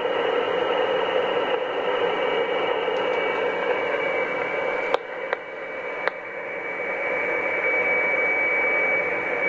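Icom HF transceiver's loudspeaker hissing with band noise and static between voice transmissions on the 20-metre band, with a steady whistle running through the hiss. A few sharp clicks come about five to six seconds in.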